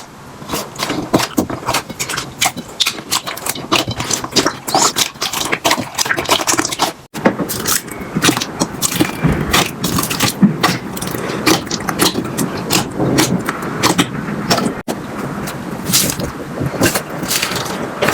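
Slime being squeezed, poked and pulled by hand: a dense run of sticky clicks, pops and crackles over a soft squelching rub. The sound breaks off abruptly twice, about seven and fifteen seconds in.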